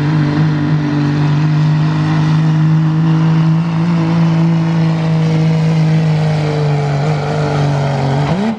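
Second-generation Dodge Ram's turbocharged Cummins diesel at full throttle under heavy load, dragging a pulling sled, running steadily at high revs. Right at the end the engine note rises briefly and then drops away sharply as the throttle comes off and the pull ends.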